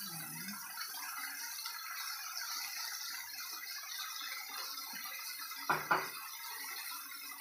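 Chicken pieces sizzling in a frying pan with soy sauce just poured over them: a steady sizzling hiss. A short double knock sounds about six seconds in.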